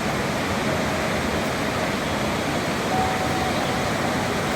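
Iguazu Falls' falling water rushing, a steady, dense, even noise.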